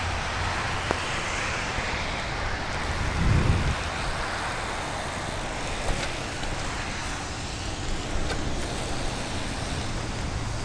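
Steady road noise of a bicycle ridden on wet pavement in the rain: tyres hissing on the wet surface, with wind noise. A short low rumble comes about three seconds in.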